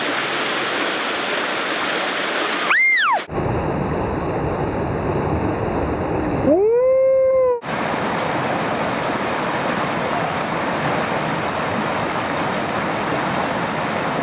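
Rushing whitewater of a river rapid, a steady rush of water carrying on across several cut-together shots. Two short pitched calls cut in: one falling sharply in pitch about three seconds in, and one rising and then held for about a second at around seven seconds.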